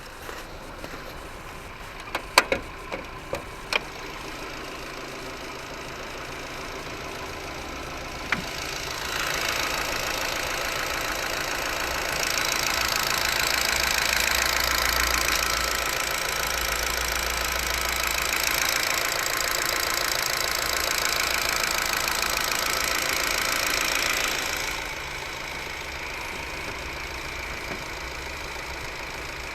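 Ford Focus 3 engine running at idle with a knocking noise in it, which the owner cannot tell apart from normal running. A few sharp clicks come about two to four seconds in, and the engine is louder from about nine seconds in until a few seconds before the end.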